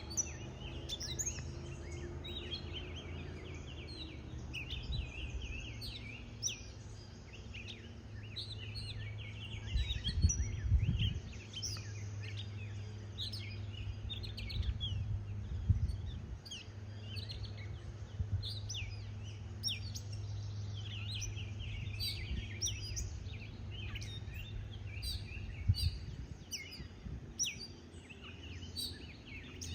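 Many small birds chirping and twittering together in quick, overlapping short calls, over a steady low hum, with a few low thumps about ten seconds in and again near sixteen seconds.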